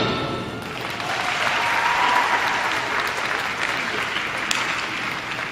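Audience applauding in an ice rink as the skating program's music fades out in the first half-second.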